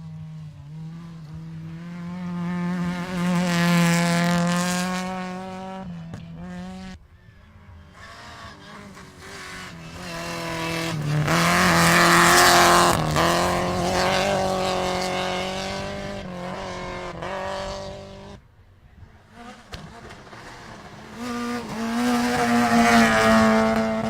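Rally cars running hard on a special stage, engines at high revs, swelling and fading as they pass. There are three loud passes, peaking about four, twelve and twenty-three seconds in, each cut off abruptly by the next.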